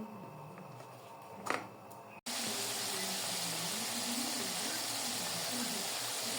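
Quiet room sound with a single click, then, after a sudden cut about two seconds in, a steady crackling sizzle of food frying in a pan.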